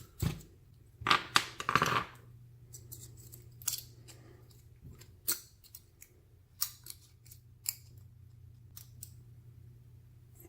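Small metal clicks and scrapes of a screwdriver working against the detent and core of an Abus 80/45 padlock, a cluster of louder rattles in the first two seconds, then scattered single ticks.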